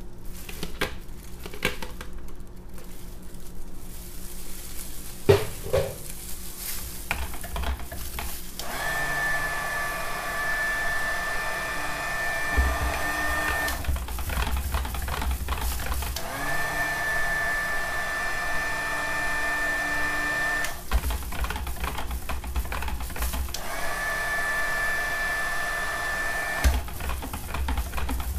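Electric stick blender running in three bursts of a few seconds each, with a steady motor whine, blending lye water and oils into cold-process soap batter in a plastic pitcher. Before the first burst there are a few knocks and clicks of handling.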